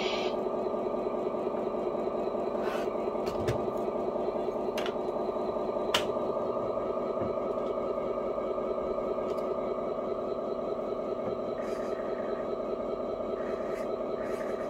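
RC scale truck's electronic sound module playing a simulated diesel engine at a steady idle through its small speaker, with a few light clicks.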